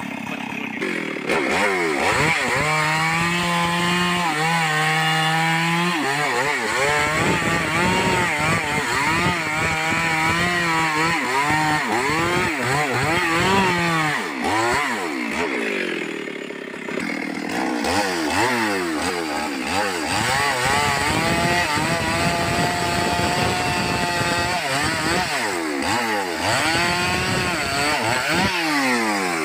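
Two-stroke chainsaw running at high revs and cutting through wood, its pitch held steady under load in long stretches, then dropping back and rising again several times, with a short lull about halfway through.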